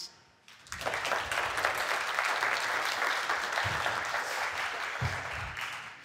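Audience applauding: the clapping starts about half a second in, holds steady and dies away near the end.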